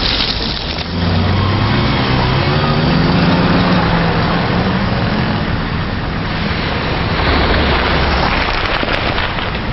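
Road traffic going by: a vehicle engine running from about a second in, then the tyre noise of passing cars.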